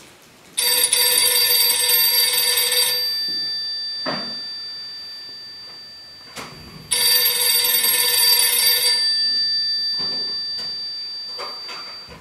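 Telephone bell ringing twice, each ring lasting about two seconds and then fading out slowly, with the second ring about six seconds after the first.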